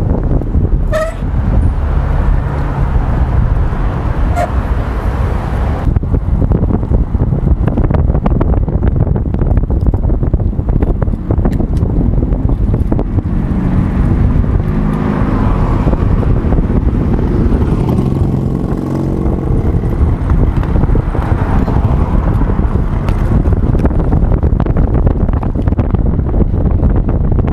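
Wind rushing and buffeting over an action camera's microphone on a moving motorcycle, loud and steady, with the engine's note showing through under it in the middle stretch.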